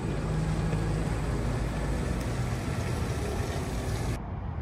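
Tractor engine running steadily, with wind rumbling on the microphone. Near the end the hiss drops away abruptly.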